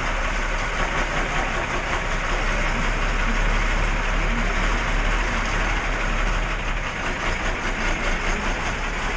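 A bus's engine running steadily with road noise, heard from inside the driver's cab while moving, with a constant deep drone underneath.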